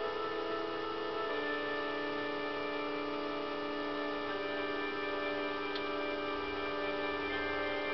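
Sustained electronic tones like a held synth or organ chord, the notes changing about a second in and again about four seconds in, heard through a computer speaker.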